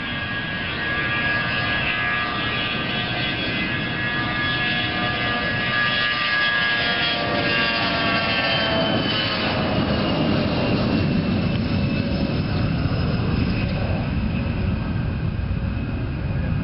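Bombardier CRJ regional jet's two rear-mounted turbofans passing close: a whine of many tones that slides down in pitch about nine seconds in as the jet goes by, then a louder low rumble.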